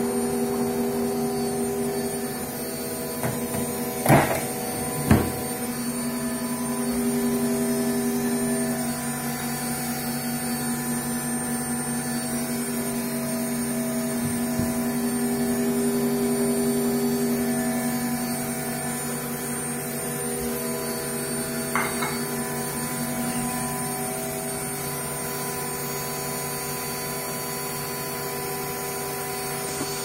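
Electrolux front-loading washing machine running with a steady hum. Two sharp knocks come about four and five seconds in, and a lighter one later.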